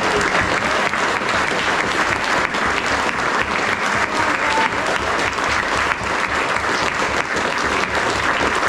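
Crowd applauding, a steady dense clapping throughout.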